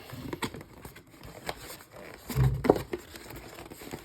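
Hands opening a cardboard trading-card hobby box: scattered scrapes and taps, with a dull thump about two and a half seconds in.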